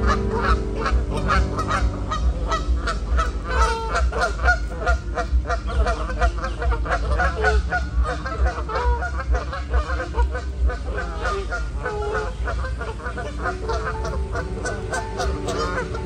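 Canada geese honking: many short calls in quick, overlapping succession over a steady low rumble.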